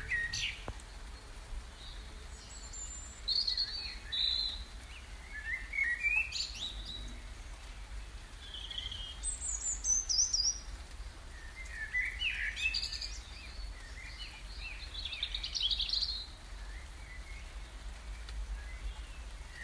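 Wild birds singing: short chirps and trills at scattered moments a second or two apart, high-pitched, over a steady low rumble.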